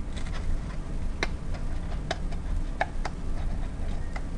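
Scissors cutting through paper: a handful of short, sharp snips at uneven intervals.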